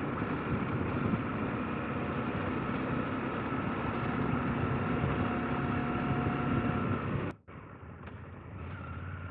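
KTM 890 Adventure R's parallel-twin engine running steadily while riding on a dirt gravel road, with wind noise. A little over seven seconds in the sound cuts off abruptly and comes back quieter.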